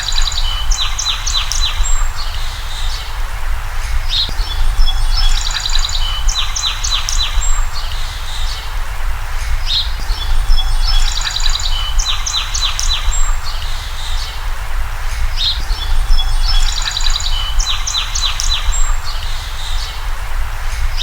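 Songbird singing in rapid high chirps and trills, the same phrase returning about every five and a half seconds, over a steady low rumble.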